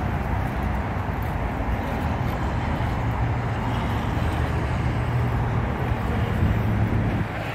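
A motor vehicle's engine running steadily, a low hum under outdoor noise, dropping off about seven seconds in.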